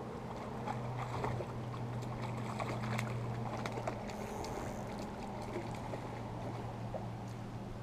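Steady low hum of a small fishing boat's motor running, with scattered light ticks and a brief splash about four seconds in as a fish breaks the surface beside the boat.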